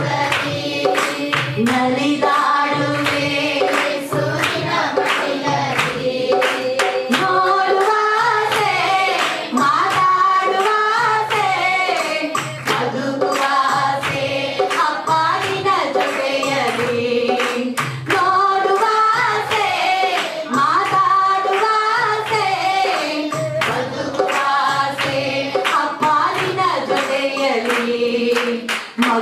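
A man singing a Christian worship song into a microphone over musical accompaniment with a steady beat, with short sharp hits like hand claps or percussion running through it.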